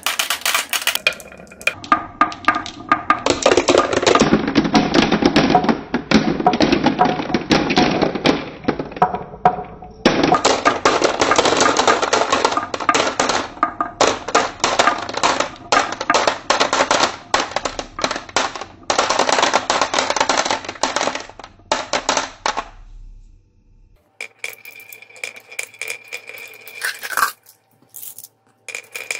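Glass marbles rolling down grooved wooden wave tracks, clacking against each other and the wood and dropping into a plastic bin among other marbles: a dense rattle of clicks. It dips briefly about ten seconds in, breaks off near the end, then returns as sparser clicks.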